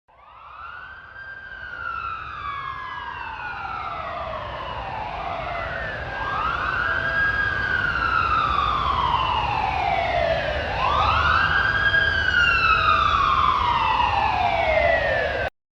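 A siren wailing in three slow cycles, each a quick rise in pitch followed by a long, slow fall, over a low rumble. It grows louder over the first couple of seconds and cuts off abruptly near the end.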